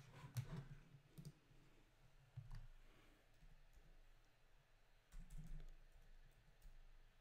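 Near silence: faint room tone with a few soft, scattered clicks and small handling sounds.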